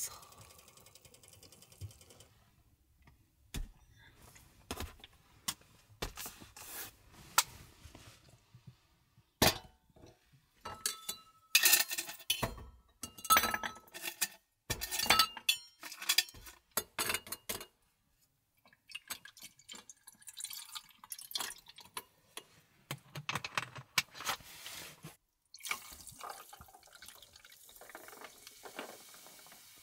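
Kitchen work with tableware and water: scattered clinks and knocks of dishes, pots and glass, with water trickling or pouring between them. The clinks are busiest in the middle, where one rings briefly, and pause for a moment about two-thirds of the way through.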